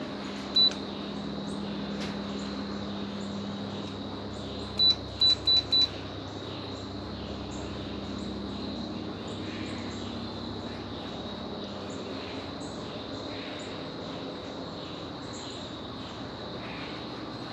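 Monte Carlo Maverick ceiling fan running with a steady whir and low hum. Short, high electronic beeps sound as remote buttons are pressed: one about half a second in, then four quick beeps around five seconds in.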